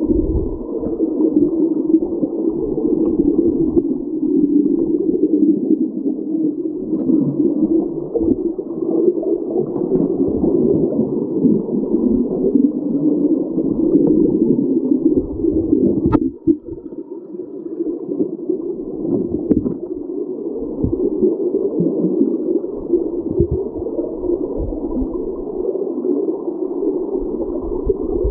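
Flowing creek water heard through an underwater camera housing: a steady, muffled rushing with no highs. A single sharp click about sixteen seconds in, followed by a brief drop in level.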